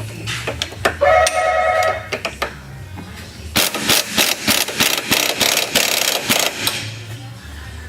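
Pneumatic impact wrench hammering in rapid rattling bursts for about three seconds, midway through, during the strut installation. Before it, a short high tone sounds for about a second.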